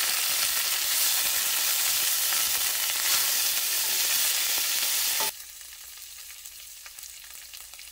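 Fresh fenugreek (methi) leaves and green chilies sizzling loudly in hot coconut oil in a stainless steel pan, stirred with a steel ladle. About five seconds in, the sizzle drops abruptly to a much quieter frying with faint crackles.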